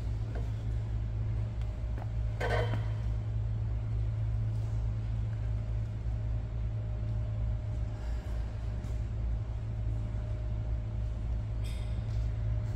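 A steady low rumble, with one short sharp noise about two and a half seconds in and a faint steady tone joining it about halfway through.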